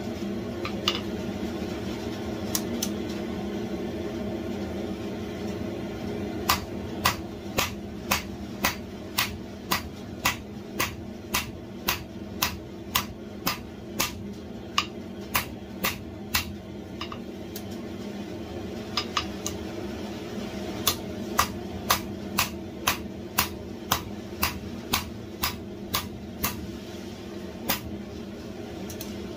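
Hand hammer striking red-hot flat bar steel on an anvil while forging a mini-tong blank, about two blows a second in steady runs, with a pause of a few seconds past the middle. A steady rushing noise from the running forge lies underneath.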